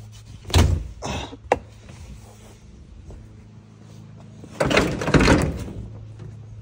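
Clatter and knocks of things being handled while rummaging for a flashlight: a few sharp knocks in the first second and a half, then a longer rattling clatter about two-thirds of the way through, over a steady low hum.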